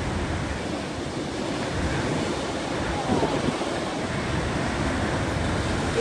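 Heavy surf from a cyclone swell crashing and washing white over a rocky point, a continuous churning rush with a deep low rumble.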